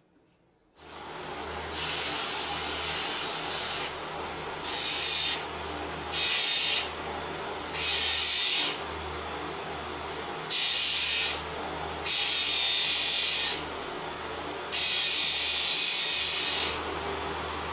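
A homemade combination belt and disc sander starts up about a second in and keeps running with a steady low hum. A small piece of 5 mm solid wood is pressed against the spinning sanding disc seven times, and each contact gives a hissing rasp of one to two seconds.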